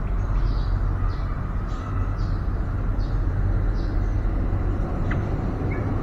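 Steady low rumble, with faint short high bird chirps now and then in the first four seconds and a brief tick about five seconds in.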